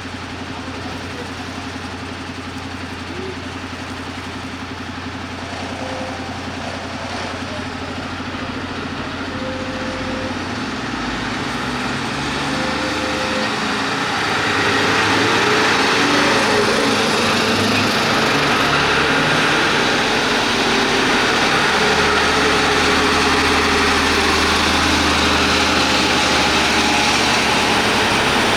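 Fire engine's diesel engine running steadily, then growing louder and rougher about halfway through and staying loud, as when the truck pulls away and gets under way.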